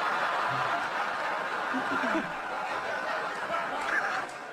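Large audience laughing, a dense steady wash of laughter, with a brief chuckle from a single person around the middle.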